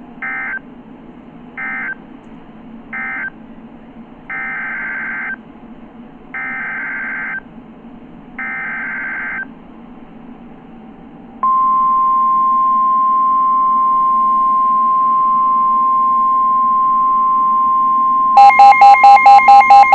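NOAA Weather Radio Emergency Alert System tones: three short warbling data bursts close the previous warning, then three longer SAME header bursts open the next alert. The steady 1050 Hz warning alarm tone follows, and near the end a loud, rapidly pulsing multi-pitched beep sounds over it.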